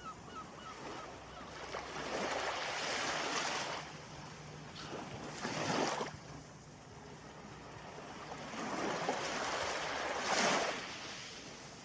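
Ocean surf: waves washing in and breaking on the shore, the rushing noise swelling and falling back three times.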